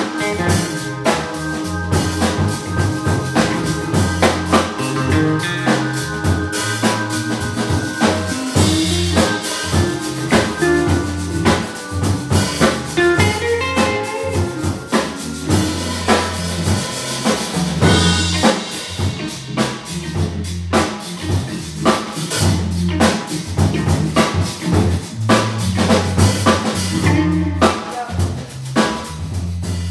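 Live blues organ trio playing: a Hammond organ carrying the bass line and chords, with electric guitar and a drum kit keeping a steady beat.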